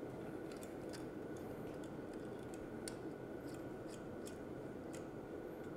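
Faint, irregular small metallic clicks as hex bolts are threaded by hand into a steel bracket on the grinder's upright, over a steady low hum.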